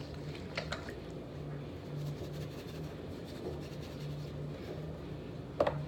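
Quiet kitchen room tone: a low hum that comes and goes, with a few faint clicks and a sharper click near the end.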